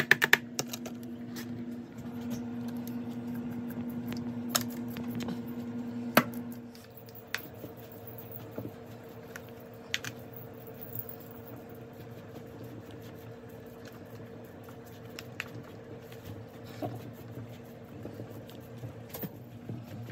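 Chopped chicken, vegetables and rice being stirred with a spatula, with soft scraping and squishing and scattered taps of the utensil against the bowl. A steady low hum runs underneath, louder for the first several seconds.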